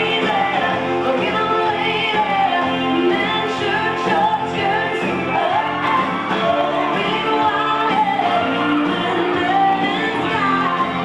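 A song playing: a singing voice carrying a melody over steady instrumental backing.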